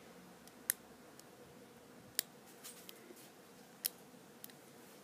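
Faint metallic clicks of a lock pick working the pin stack inside a Master Lock No. 3 padlock under a tension tool, while the rear pins are being set; three sharper clicks come about a second and a half apart, with softer ticks between.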